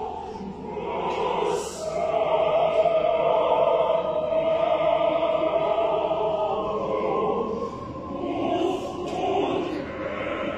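Mixed choir singing an African choral piece, holding one long chord through the middle before moving on to shorter phrases.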